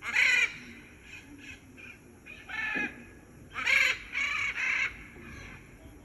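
Macaw squawks: a loud call at the start, a few softer ones, another about two and a half seconds in, then three in quick succession around four seconds.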